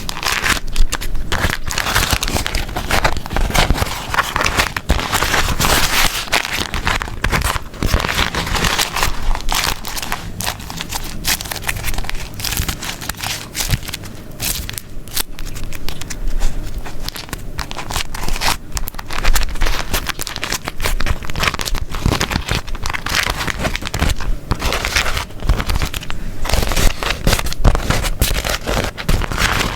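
Beeswax wrap being crumpled and folded close up: continuous irregular crinkling and crackling, with the sticky waxed fabric peeling apart.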